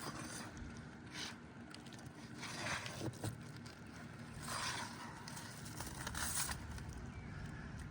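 A new roofing shingle scraping as it is slid into place under the shingles above, in about four short strokes spaced a second or two apart.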